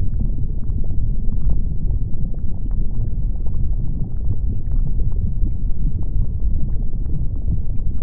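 Erupting lava volcano: a steady deep rumble with scattered small crackles and pops.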